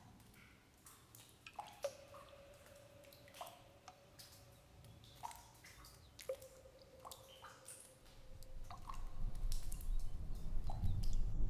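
Water dripping: single drops land one by one with short plinks, roughly one a second, some leaving a brief ringing note. A low rumble builds up over the last few seconds.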